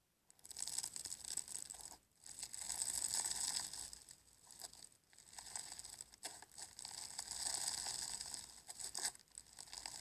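Slime being played with: a dense, crackly, sticky sound full of tiny clicks and pops, coming in several bouts with short breaks.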